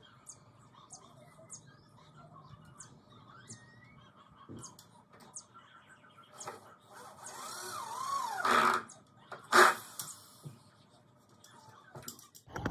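Small birds chirping faintly, then, about seven seconds in, a dog close to the microphone whining with a wavering pitch, followed by two loud, sharp yelps about a second apart.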